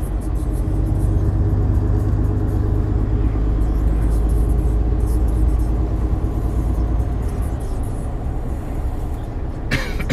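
Lorry's diesel engine and tyres heard from inside the cab: a steady low drone with road noise as the truck picks up speed on a wet road. A brief noisy burst near the end.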